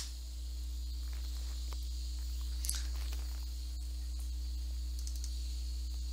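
Steady hiss of AM static with a low hum, from an RTL-SDR receiver in AM mode tuned across empty CB channels, the sign that no one is transmitting there. A brief crackle comes about two and a half seconds in, and there are a few faint clicks.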